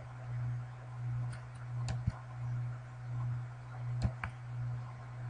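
Computer mouse clicking, two quick double-clicks about two seconds apart, over a low steady hum that swells and fades in a regular rhythm.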